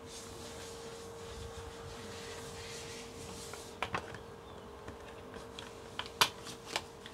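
A few light clicks and taps from makeup packaging being handled: the loudest about six seconds in, the others near four and seven seconds. Under them runs a steady faint hum.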